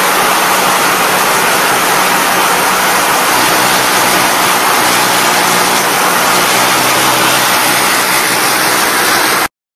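Packaging line machinery running steadily: a loud, even machine noise with a low hum underneath. It cuts off suddenly near the end.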